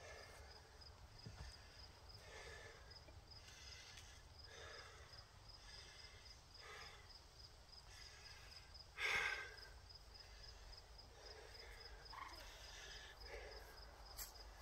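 Faint, steady insect chirping, a rapid pulsing high-pitched trill, with a person's soft breaths every couple of seconds and a louder sigh about nine seconds in.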